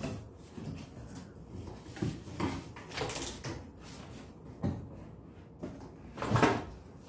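Cardboard box being opened and unpacked by hand: a series of irregular scrapes and rustles as the flaps are folded back and parts are pulled out, with the loudest scrape near the end.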